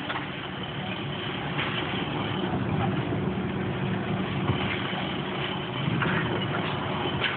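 A heavy engine running steadily, with a few brief knocks over it.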